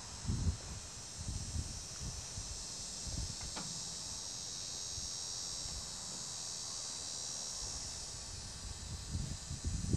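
Insects chirping in a steady high-pitched chorus, with occasional low bumps and rumbles on the microphone.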